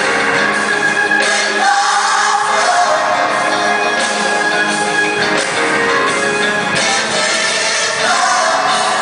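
Music with several voices singing together, choir-like, at a steady loud level.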